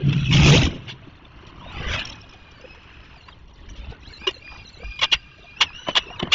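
Fast-forwarded street sound: short whooshes of passing vehicles, the loudest about half a second in and another near two seconds. Then a quick run of sharp clicks and knocks in the last two seconds.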